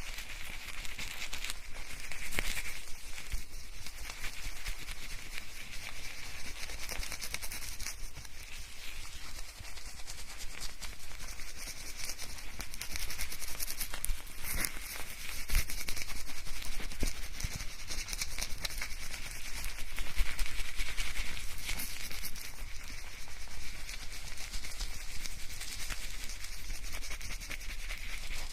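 Hair being shampooed close up in binaural sound: fingers scrubbing through lathered hair give a continuous crackling, squishing rustle of foam that swells and eases.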